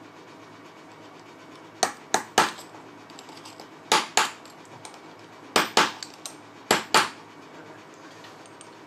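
Hammer striking a steel punch to drive the 6805 cartridge bearing out of a Shimano BB-52 Hollowtech II bottom bracket cup: about nine sharp metal-on-metal taps, coming in twos and threes. The bearing has broken apart and part of it is stuck in the cup.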